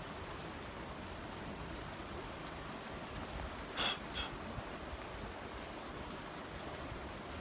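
Steady rush of a flowing stream, with two short metallic clinks about four seconds in, as food is taken off a small metal charcoal grill.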